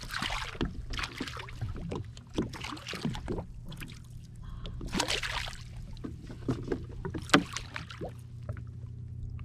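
Hooked snapper splashing and thrashing at the water surface beside a jet ski as it is lifted out on the line, in irregular splashes, with one sharp knock a little after seven seconds in. A steady low hum runs underneath.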